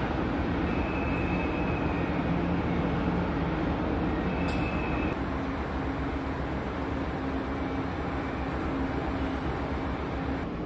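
Steady outdoor rumble and hiss of harbour ambience, with a few faint steady hums running through it.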